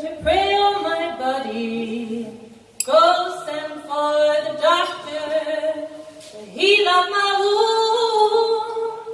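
A woman singing a slow Irish folk ballad into a microphone, in three long phrases of held notes with short breaths between them.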